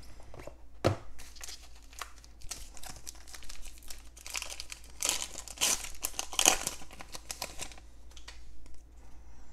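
Foil trading-card pack being torn open and crinkled by hand, the crackling loudest from about five to eight seconds in. A single soft knock about a second in.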